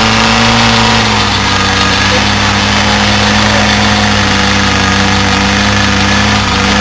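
Small off-road 4x4's engine running hard at steady revs as it sits bogged in mud, the pitch dipping slightly about a second in and then holding.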